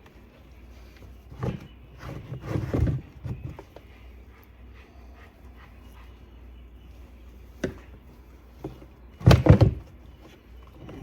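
Handling noise from fitting a chainsaw's replacement handlebar and rubber grommets: scattered knocks and rattles of hard plastic and metal parts. A short cluster comes about two seconds in, and a louder one shortly before the end.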